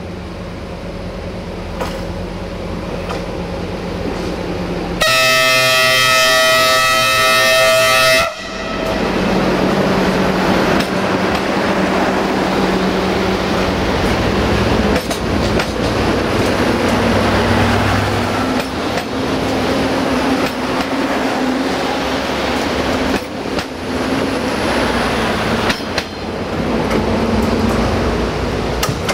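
Siemens Desiro VT642 diesel multiple unit approaching, its diesel engines growing louder, then sounding its multi-tone horn for about three seconds. It then runs close past with a steady engine hum, the rush of the train and the knock of wheels over the rail joints.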